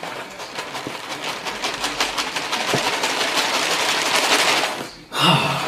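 Dry food poured from a cereal box, rattling onto a shoe and a stone countertop as a fast stream of small ticks. The stream grows louder and then stops abruptly near the end.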